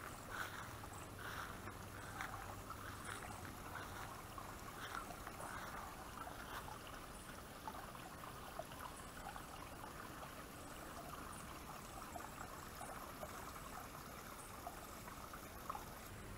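Water from a garden koi pond's waterfall splashing and trickling steadily into the pond.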